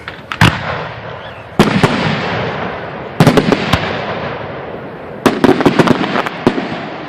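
Aerial fireworks shells bursting in a display: a loud bang near the start, then clusters of sharp bangs about every one and a half to two seconds, each trailing off into a slowly fading noisy tail.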